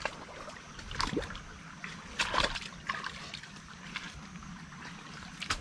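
Five or six sharp snaps and cracks of bamboo stems and dry litter in a bamboo thicket, roughly a second apart, with rustling between; the loudest comes about two and a half seconds in.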